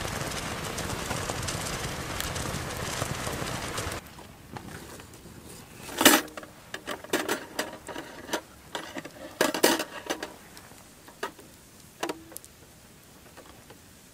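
A metal mess tin of rice boiling hard over a wood fire, with a steady loud hiss for the first few seconds. Then, quieter, the metal pot and grill clank sharply a few times, two loudest about six and nine seconds in, as the fire is turned down to low heat.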